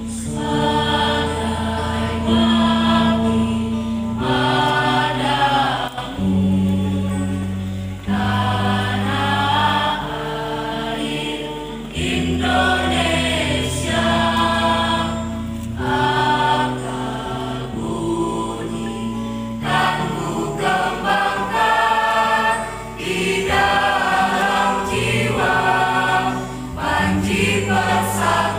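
Mixed choir of young men and women singing in parts, with held chords that change every couple of seconds.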